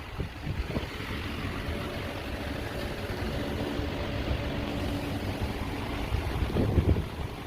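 A vehicle engine running at low revs, an uneven low rumble with a faint hum.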